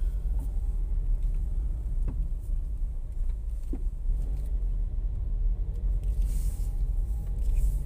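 Car cabin noise while driving slowly: a steady low engine and road rumble, with a couple of faint clicks.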